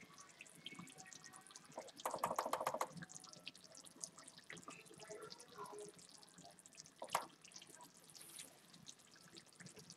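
Thick sloppy joe meat sauce simmering in a pan, faintly popping and plopping. There is a louder rapid rattling burst about two seconds in and a single knock about seven seconds in.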